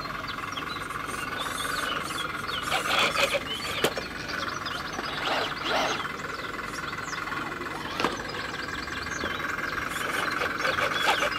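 Electric drive of a Land Rover Series scale RC crawler whining steadily as it creeps over rocks, with tyres scrabbling on stone in a couple of short bursts and a few sharp knocks.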